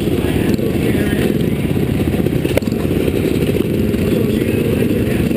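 Flat-track motorcycle engines idling, the nearest one close to the microphone, with a steady fast pulsing and one sharp click about two and a half seconds in.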